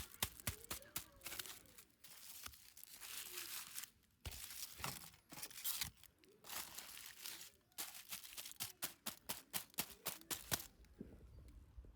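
Toy packaging being torn open and crinkled by hand: several longer ripping stretches broken up by quick runs of small clicks and taps.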